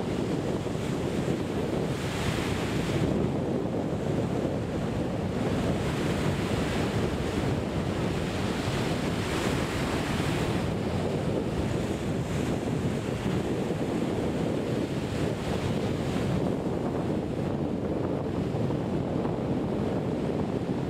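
Small surf waves breaking and washing up a sandy beach, swelling and fading every few seconds, with steady wind rumble on the microphone.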